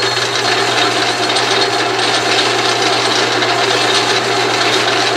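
Atlas/Craftsman 12-inch metal lathe running steadily under power feed with a motor hum, its single-point threading tool cutting a metric thread and peeling a chip off the workpiece.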